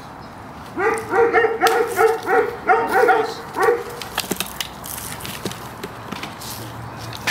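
Doberman pinscher barking in a fast run of about ten deep barks over some three seconds, then stopping.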